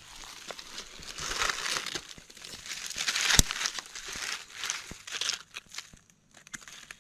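Dry fallen leaves crinkling and rustling as gloved hands clear the leaf litter and pull up a mushroom, with one sharp snap about halfway through. Only a few faint ticks remain near the end.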